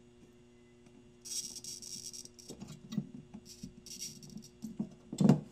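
Soldering iron melting a capacitor's solder joints on a fence-charger circuit board: flux and solder sizzling in two short hisses, with small clicks from handling the board and a louder knock near the end.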